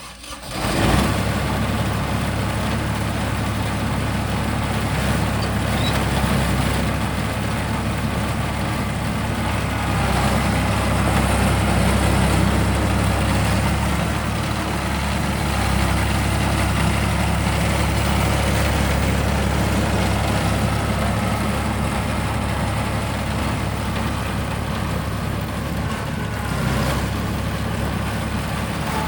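Kubota F2890 front-mount mower's diesel engine running steadily at idle.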